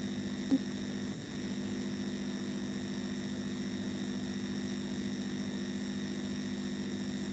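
Steady electrical hum with a faint hiss: several even, unchanging tones and no other activity, with one brief faint blip about half a second in.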